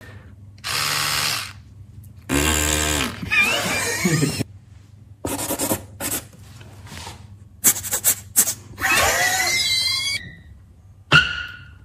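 A string of short, scratchy rasping strokes, some of them squeaky, that go with a marker pen being drawn across a cardboard box.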